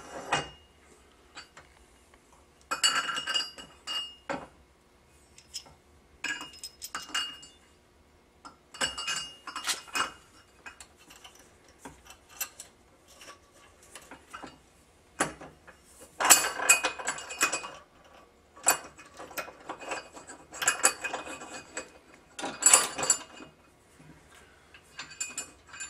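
Metal clinking and scraping as a bolt and its washers are handled and pushed through a metal jack plate mounting bracket by hand. It comes in scattered bursts of small clinks, busiest in the second half.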